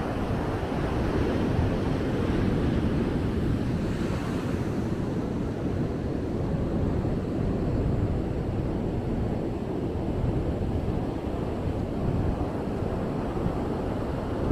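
Ocean surf rushing and washing on the beach in a steady noise, with wind buffeting the microphone.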